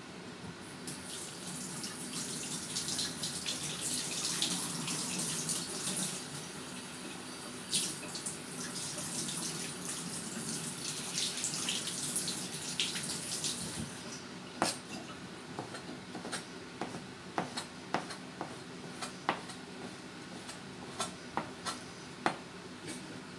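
Kitchen tap running into a steel sink for most of the first half. Then a cleaver chopping on a cutting board: a string of sharp, irregular knocks about once a second.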